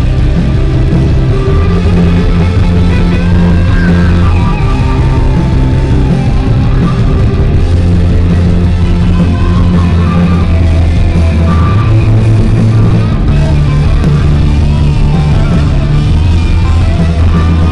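Live rock band playing loud, with electric guitars, bass and drums heard from the audience, the low chords shifting every few seconds.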